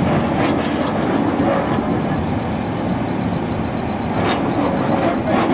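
Steady loud mechanical noise with a faint, rapid, high-pitched beeping running through it.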